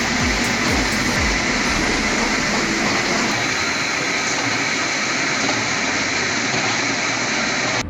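Heavy wood-processing machinery running with a loud, steady grinding noise, with a series of low falling sweeps in the first second and a half; the sound cuts off abruptly at the end.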